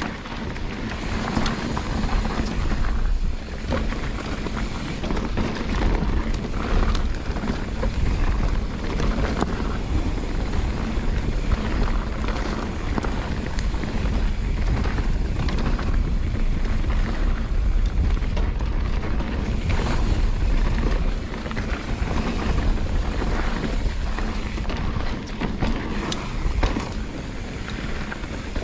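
Wind buffeting the microphone in a heavy, fluctuating low rumble during a mountain bike ride, with scattered knocks and rattles from the trail.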